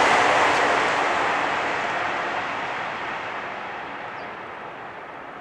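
Keisei Skyliner AE-series train passing on an elevated viaduct, its rushing rail noise fading steadily as the train draws away.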